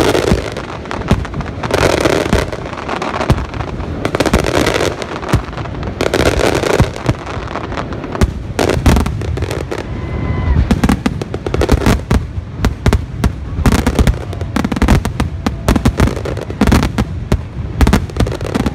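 Fireworks display: aerial shells bursting in quick succession, many sharp bangs with patches of crackling between them.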